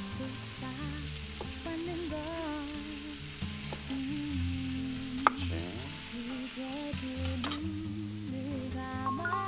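Background music over a pan sizzling, with a few sharp knocks of a kitchen knife on a wooden cutting board as a tomato is cut into wedges; the loudest knock comes about five seconds in.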